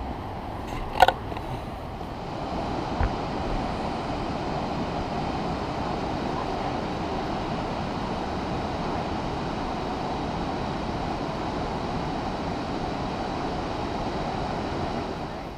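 Steady rushing of the Whitewater Falls upper falls, a tall mountain waterfall, growing louder about two seconds in. A single sharp click about a second in.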